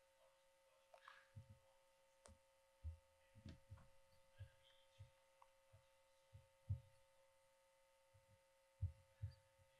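Near silence: room tone with a faint steady hum and a few soft, irregularly spaced low thumps.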